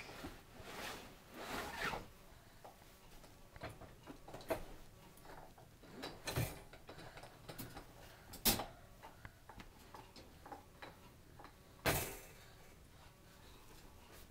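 Scattered light rattles, knocks and rustling from a toddler's hands on wire pet crates, with three louder sharp clacks about six, eight and a half and twelve seconds in.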